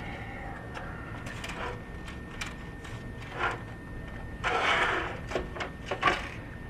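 Handling noise from the plastic housing of a Big Mouth Billy Bass animatronic fish: scattered small clicks and knocks, with a longer scraping rustle about four and a half seconds in.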